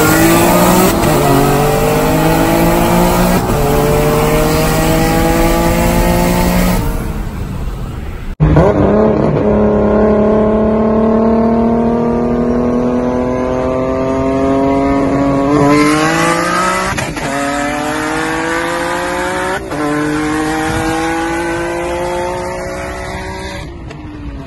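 Sports car engines at full throttle in a roll race, rising steadily in pitch through each gear and dropping at several upshifts. About eight seconds in the sound breaks off suddenly and a new hard acceleration run begins.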